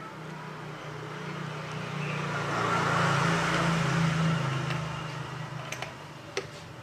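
A road vehicle passing by: its noise swells to a peak about three seconds in and fades away, over a steady low hum, with a couple of light clicks near the end.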